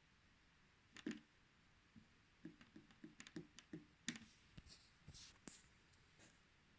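Fingers tapping and clicking on an All Call W1 smartwatch: a double click about a second in, then a quick run of about eight light taps and some faint rubbing. No beep or tone is heard from the watch, which has a no-sound fault.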